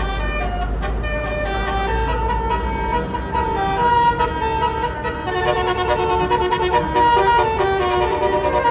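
Bus telolet horn, a Basuri multi-tone air horn, playing a melody: several notes sounding together and changing pitch in steps, over the low rumble of the bus engine. It gets a little louder about four seconds in.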